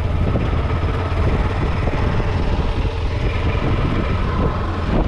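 Honda Falcon 400 motorcycle's single-cylinder engine running steadily while riding, a low rumble under heavy wind noise on the microphone.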